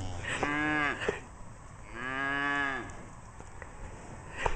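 Cattle mooing twice, two short calls, each rising and then falling in pitch. A brief sharp knock comes near the end.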